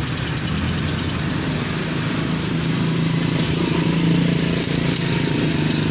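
A motor vehicle engine idling steadily, swelling a little louder for a couple of seconds in the middle.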